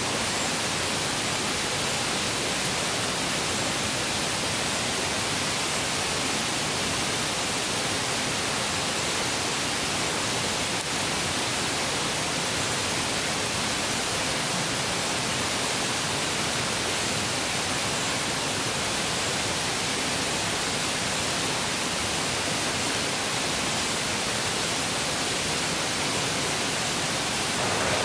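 Steady rush of a shallow rocky forest stream: an even, unbroken hiss of running water.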